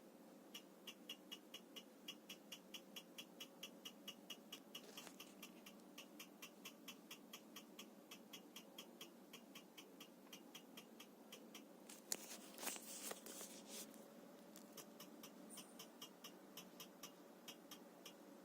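Tiko 3D printer ticking faintly and regularly, about four ticks a second, over a faint steady hum: the abnormal ticking fault that set in after about a dozen prints. A brief louder rustle comes about two-thirds of the way through.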